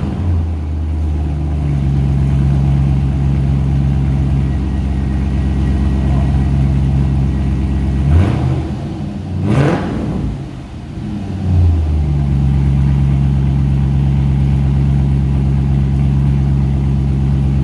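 2005 Pontiac GTO's 6.0 L LS2 V8 through a muffler-delete exhaust, just started and idling. It is blipped twice, quick revs about eight and nine and a half seconds in, then settles back to a steady idle.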